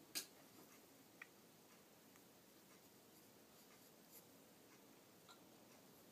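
Near silence with faint rustling and a few soft ticks as fingers work a wound bracelet of handspun yarn off the hand; one sharper click just after the start.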